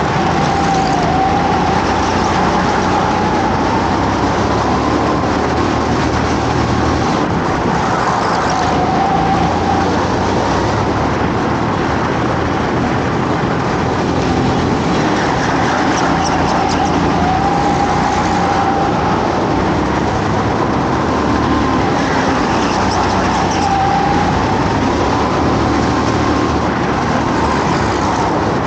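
Go-kart engine running hard, its pitch rising as it revs up and falling as it comes off the throttle, several times over.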